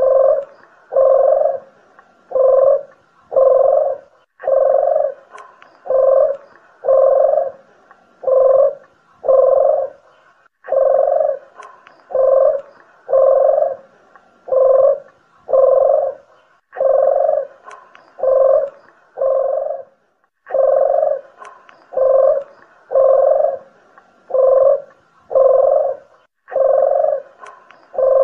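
Collared doves (puter geni and deruk jawa) cooing: a steady string of low coos, roughly one a second, broken by short pauses every five or six seconds, played as a bird-lure recording.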